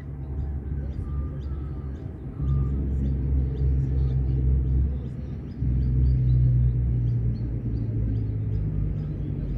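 A low rumble that swells about two seconds in and again just past the middle, with birds chirping faintly above it.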